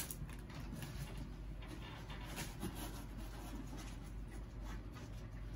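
Faint rustling and light scratching with a few soft taps: hands rummaging for and handling a plastic top loader for a trading card.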